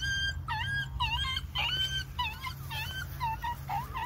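Recording of a dog whimpering and yelping in distress, played through a phone speaker: a run of short, high crying calls, two to three a second.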